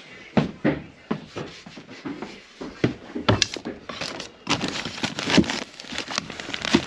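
Irregular wooden knocks and clatter, the loudest a little past the middle, with rustling between them, as a cut piece of tongue-and-groove board is handled and fitted against the framing.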